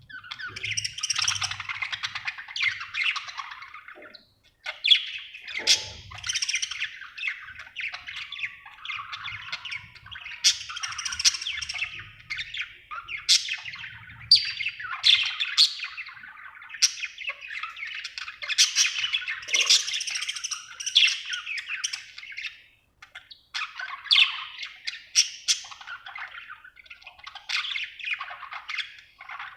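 Budgerigar chirping and warbling in long chattering runs mixed with sharper squawks, broken by brief pauses.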